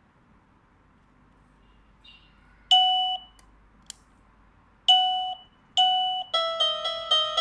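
Daytech CC01 receiver giving three short electronic beeps, with a faint click between the first two, then starting a quick electronic ringtone melody about six seconds in.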